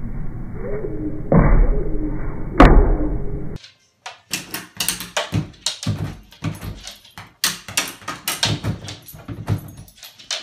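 A plastic pet door flap clacking again and again against its frame as a dog pushes its head through it, irregular sharp knocks about two to three a second. Before that, a short stretch of outdoor noise with one sharp snap.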